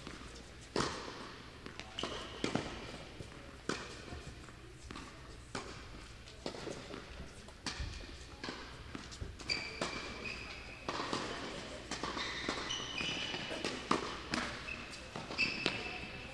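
Tennis rally: a ball struck by rackets and bouncing on the court, sharp hits about every second or so.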